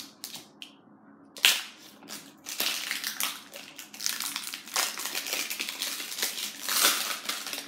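Crinkly toy packaging being torn open and crumpled by hand. A sharp rip comes about a second and a half in, then a dense run of crackling and crinkling that goes on until near the end.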